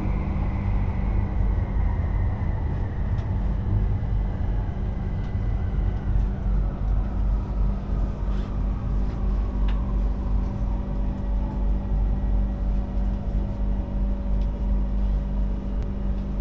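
Bangkok Airport Rail Link electric train running, a steady low rumble with a motor whine that falls in pitch over about the first ten seconds as the train slows.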